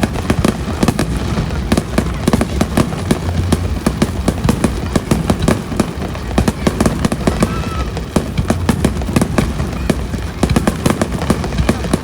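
Fireworks display going off in quick succession: many sharp bangs and crackles, several a second, over a steady low rumble.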